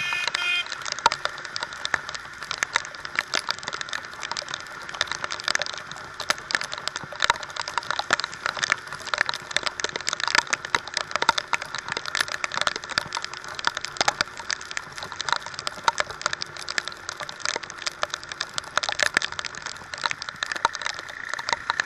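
Heavy rain hitting a motorcycle-mounted camera: a dense, steady crackle of drops on the housing, over the hiss of water spray on a wet road.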